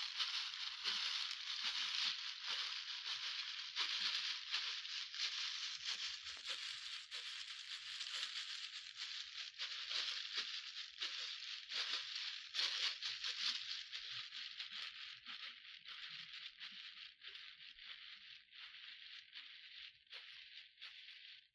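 A steady hiss with many small clicks and crinkles scattered through it, fading gradually over the last several seconds.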